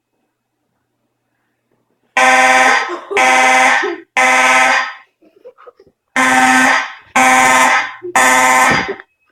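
Fire alarm horns go into alarm about two seconds in, blasting in the temporal code-3 pattern: three loud buzzy blasts, a pause, then three more. The alarm was set off by a pulled manual pull station.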